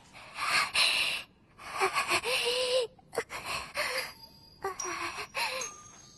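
A woman gasping and panting in four breathy bursts, each about a second long, her voice breaking into short moans within them.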